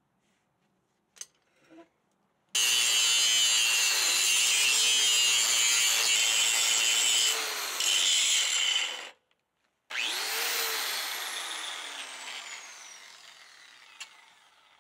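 Hand grinder on the metal of an 8.8 rear axle housing, grinding it clean. It runs loud and steady for about six seconds and stops. After a short gap it is triggered again and winds down with a falling whine.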